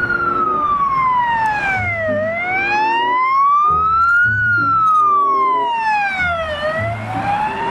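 Mercedes-Benz Sprinter ambulance's siren sounding a slow wail. Its pitch falls and rises in long smooth sweeps, about two seconds each way, reaching its low point twice.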